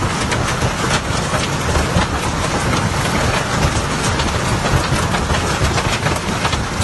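Hail pelting down, a dense clatter of many small hailstone impacts over a steady rushing noise with a low rumble beneath.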